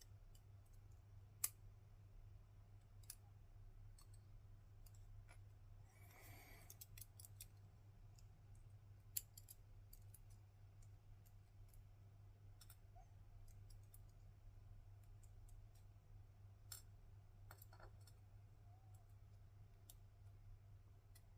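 Near silence over a faint steady low hum, broken by scattered small sharp clicks and taps of small lock parts being handled at a bench while a lock cylinder is taken apart. A brief rustle comes about six seconds in.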